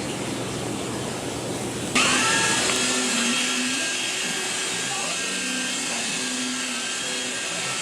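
Steady hiss, then about two seconds in a small electric motor starts with a short rising whine and runs on steadily, as from a power tool such as a polisher.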